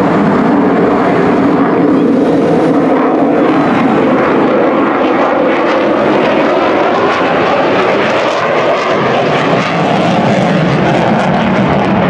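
Lockheed Martin F-35 fighter jet's single Pratt & Whitney F135 engine, a loud, steady jet roar as the aircraft makes a hard banking turn overhead, pulling vapour off its wingtips.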